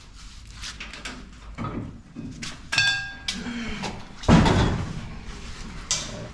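Footsteps shuffling on a concrete floor as a race car rear end axle assembly is carried and handled, with a ringing metal clank about three seconds in and a heavy thud a little after four seconds, the loudest sound, as the heavy steel assembly is set down or bumped into place.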